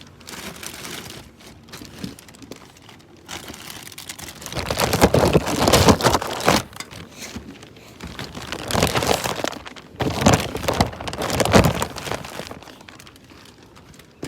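Packaging crinkling and rustling as it is handled and pulled off a new radiator, louder in two long stretches through the middle.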